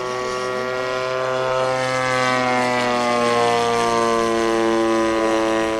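Engine of a radio-controlled scale model aeroplane flying past overhead, running steadily. It gets louder toward the middle and its pitch slides slowly down as it passes.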